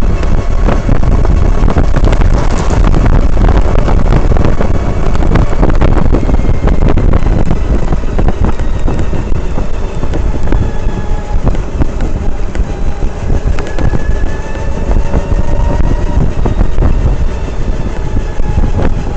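Skyboard BR60 electric tricycle rattling and knocking while being ridden: a dense, irregular clatter over a heavy road rumble, with a faint whine drifting up and down. These are extraneous noises on a practically new trike, the sign of something loose or faulty.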